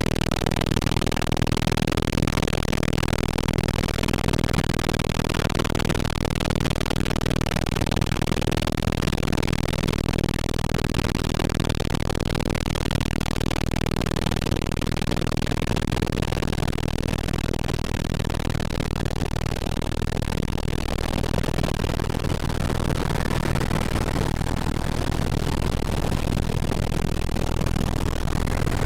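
Helicopter engine and rotor running steadily: a loud, even noise with a low hum underneath.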